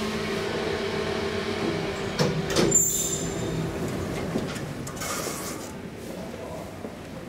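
2012 SMW traction elevator's car doors sliding open with a clatter about two to three seconds in, over a steady hum, then fading to a quieter hum.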